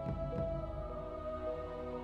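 Background music: held chords over a steady deep bass, with a couple of soft beats near the start.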